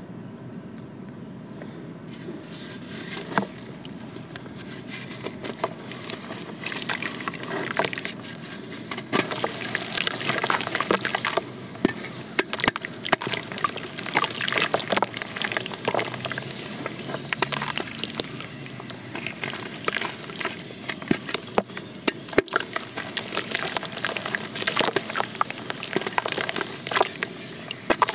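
A wet block of pressed white dirt crumbling as fingers break it apart in a basin of water: a busy run of small crackles, crumbles and splashes. It is sparse for the first few seconds and grows dense and louder after that.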